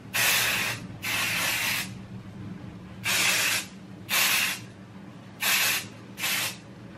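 Spray can of dry hair mask hissing in six short bursts, each about half a second long, as it is sprayed into the hair section by section.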